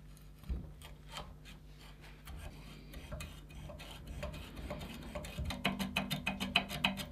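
Rusted worm screw of a 1930s Adriance adjustable wrench being turned against its seized threads, first with locking pliers and then by hand: a run of metal clicks and scraping ticks. The clicks turn faster and more regular about two-thirds of the way through, as the freed mechanism starts to spin.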